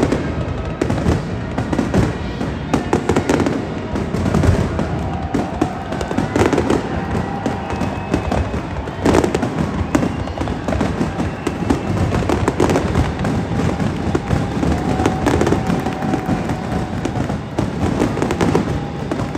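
Fireworks display: aerial shells bursting in a close, unbroken barrage of bangs and crackling.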